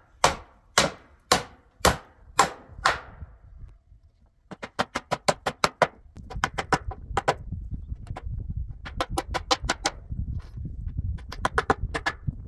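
Hammering: heavy blows about two a second, then after a short pause quick runs of lighter, rapid strikes, over a low rumble.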